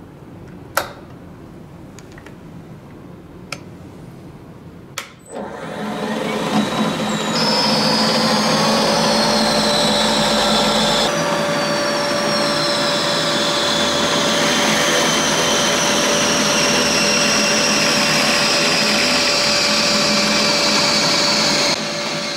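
Optimum B33 Pro Vario pillar drill: a few switch clicks, then the motor starts about five seconds in with a rising whine and runs steadily with a high whine while the bit drills into a chipboard panel. Near the end it is switched off and begins to run down.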